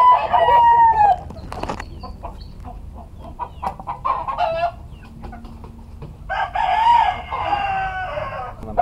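A rooster crowing twice, once at the start and again about six seconds in, each crow a long call that drops in pitch at the end, with chickens clucking in between.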